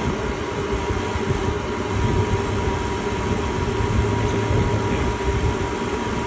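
Steady drone of running machinery, a constant mid-pitched whine over an uneven low rumble.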